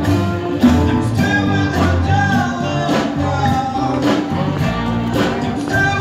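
A song with a singing voice over a low bass line and regular drum beats, played continuously.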